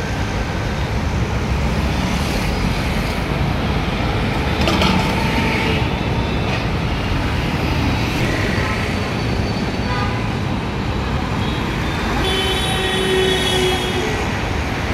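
Busy city road traffic: a steady, loud low rumble of passing engines and tyres, with a short clatter about five seconds in.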